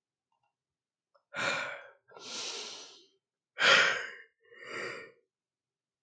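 A person breathing audibly, four breaths out in the space of about four seconds, the third the loudest.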